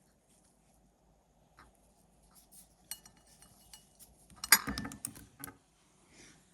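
Small kitchen items being handled: light clicks and clinks, then a louder clatter of several sharp knocks about four and a half seconds in.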